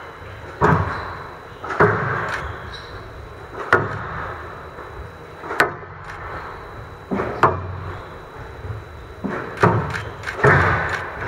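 Squash rally: the ball cracks off the rackets and the court walls with a sharp hit every one to two seconds, each hit echoing briefly in a large hall. The hits come faster near the end.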